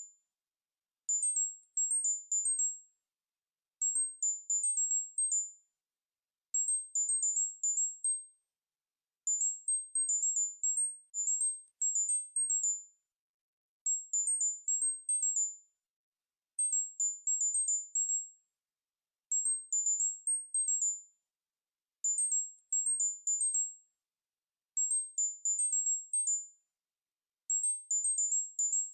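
Synthesized tinnitus-relief tone pattern: short phrases of quick, very high-pitched pure beeps that step up and down in pitch. The phrases repeat about every two and a half to three seconds, with silence between.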